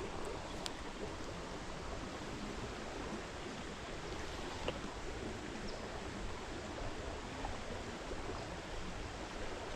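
Steady rush of flowing stream water, with a couple of faint clicks.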